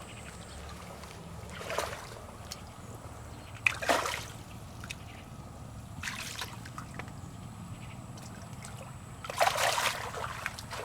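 Splashing in the shallow water of a nearly bailed-out pond: three short splashes about two seconds apart, the middle one the loudest, then a longer bout of splashing near the end.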